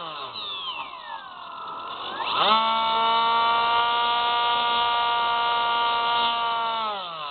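Electric motor and propeller of a Spyhawk FPV model plane whining, heard from its onboard camera. The pitch drops as the throttle comes off at the start, climbs sharply back up about two and a half seconds in, holds steady, then drops again near the end.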